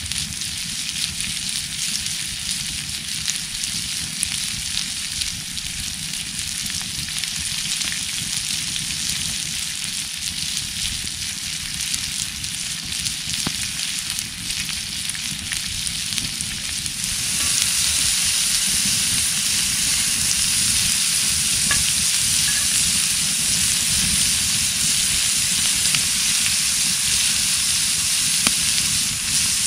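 Steady road noise from a car driving on a wet, snowy road: tyres hissing over a low rumble. The hiss gets louder about 17 seconds in and stays that way.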